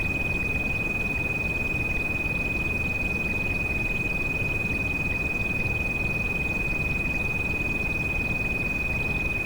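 A steady high-pitched tinnitus-masking tone held unbroken over the even hiss of continuous rain.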